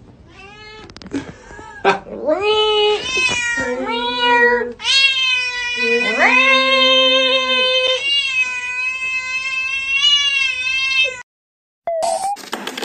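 A cat yowling in a run of long, drawn-out meows that waver in pitch, starting about two seconds in and cutting off near eleven seconds.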